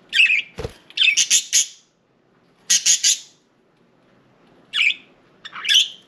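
Budgerigars giving short, harsh chirps and squawks in several quick bursts, with a single brief knock about half a second in.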